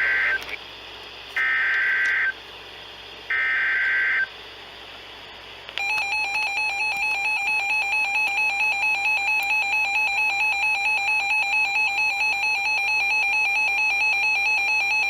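Emergency Alert System SAME data header heard over NOAA Weather Radio: three raspy digital bursts, each about a second long and about two seconds apart. About two seconds later, a steady electronic alert tone with a rapid flutter follows and runs for about nine seconds. This is the coded header and attention signal that open a new warning broadcast.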